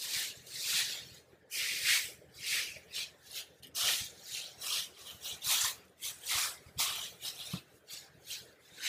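Shredded paper rustling as hands spread and fluff it into a loose layer, in quick irregular swishes about two a second.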